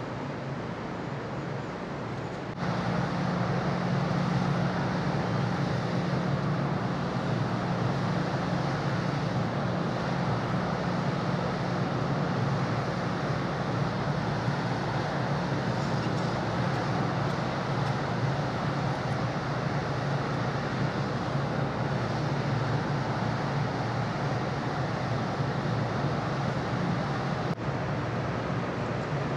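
Steady low drone of the car ferry Rokko's engines heard from the open deck, with a rush of wind and water. It gets louder about two and a half seconds in and dips briefly near the end.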